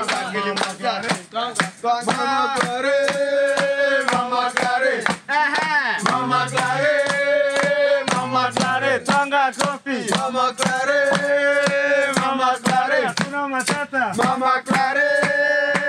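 A group of men singing together in unison, holding long notes, over a steady beat of sharp claps, about two or three a second.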